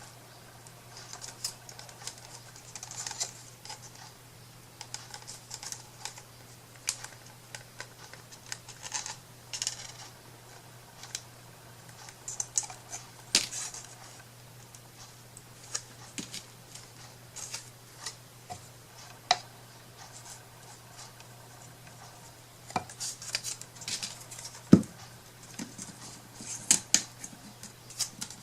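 Light handling sounds of craft work at a table: irregular small clicks, taps and scratchy rustles as materials are picked up, set down and worked, with one sharper knock about three-quarters through. A steady low hum runs underneath.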